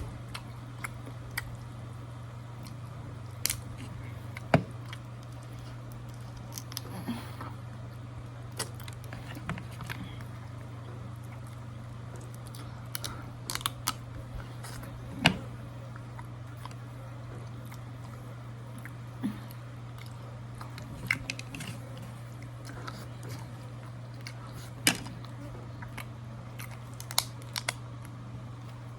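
Someone eating crab: scattered sharp cracks and clicks of shell being broken and picked, with chewing, over a steady low hum.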